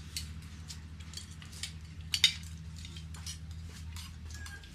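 Metal spoons clinking and scraping against plates and bowls during a meal: a string of light clicks with one sharper clink about two seconds in, over a low steady hum.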